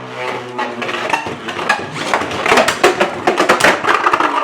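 Two 3D-printed Beyblades, Sovereign Ancalagon and Tyrant, spinning in a stadium. They begin with a spinning whine, then clatter and clash against each other in rapid, irregular hits that grow busier from about two seconds in.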